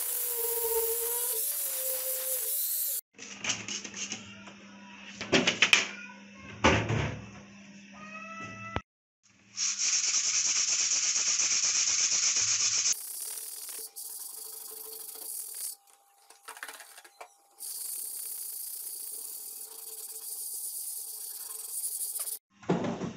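An angle grinder with a sanding disc running on an old rusty iron pan, stopping abruptly about three seconds in. Then a stretch of knocks and clicks, and later a hand scrubbing the pan's surface, loudest for a few seconds near the middle.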